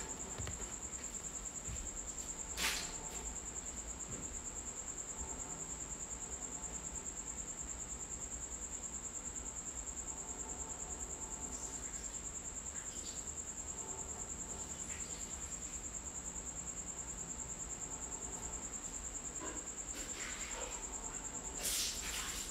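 Steady high-pitched whine, with a brief click about two and a half seconds in and a few soft rustles near the end.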